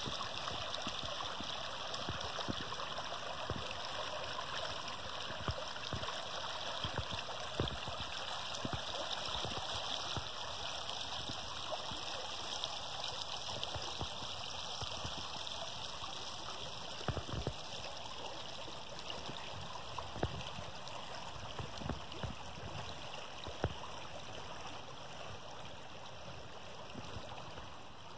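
Creek water flowing steadily with an even rushing babble, with a few faint knocks scattered through it.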